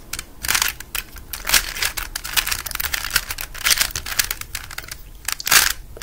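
A 3x3 Rubik's cube being turned by hand, its plastic layers giving a quick, irregular run of clicks and scrapes as they snap round, with one louder scrape near the end.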